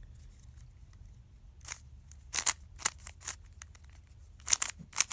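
Rubik's cube layers being turned by hand: a string of sharp plastic clicks in small clusters with short pauses between them, beginning about a second and a half in.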